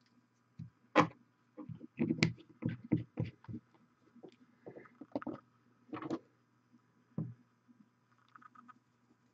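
Irregular small clicks and taps from handling objects at a miniature-painting desk, the loudest about a second in and a quick cluster between two and three and a half seconds, with a few more later. A faint steady low hum runs underneath.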